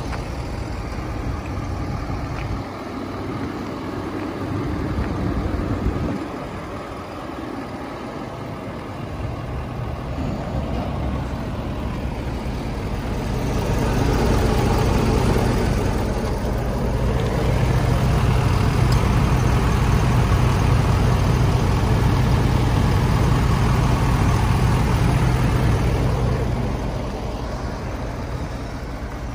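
Ford 6.7 L Power Stroke V8 turbodiesel engine idling steadily, growing louder for a stretch in the middle as the microphone nears it.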